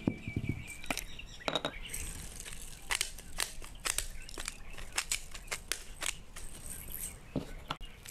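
Kitchen food-preparation handling sounds: irregular sharp clicks, taps and light crinkling, several a second, with a few brief bird chirps in the background.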